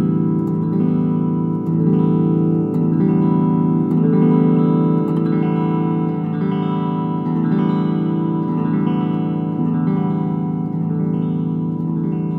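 Electric guitar played through an Ampeg V4 tube amp head and speaker cabinet: the same chord strummed over and over, a little more than once a second, while a tone control on the amp is turned to change the sound.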